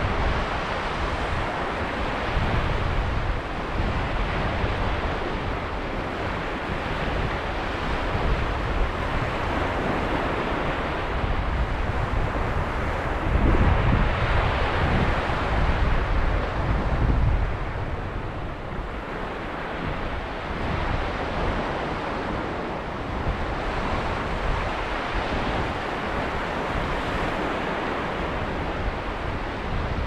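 Sea waves breaking and washing over a sand and pebble beach: a steady surf hiss that swells and eases as each wave comes in and draws back, with gusts of wind buffeting the microphone.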